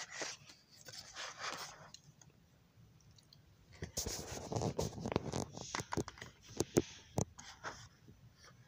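Handling noise from a plastic model passenger-car body being turned over in the hand: faint rustling, then from about four seconds in a run of sharp plastic clicks and scrapes.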